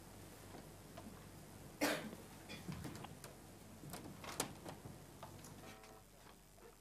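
Quiet chapel with faint footsteps and small clicks and knocks as a reader walks up to a lectern and settles at its microphone, with one louder short noise about two seconds in.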